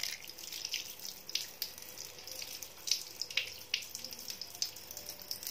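Tap water running and splashing over a hand as henna paste is rinsed off the fingers: a steady hiss of the stream with irregular spatters.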